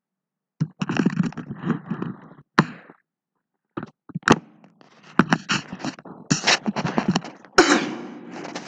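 An irregular run of knocks, thuds and scraping noises, starting about half a second in.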